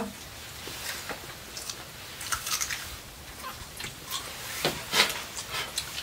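People chewing grilled sausages, a scatter of short soft clicks and smacks from eating.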